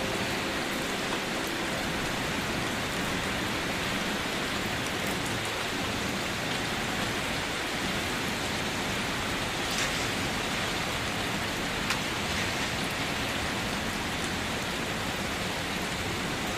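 Steady rain falling: an even hiss of rain on a surface, with a few individual drops ticking out, one sharper one about twelve seconds in.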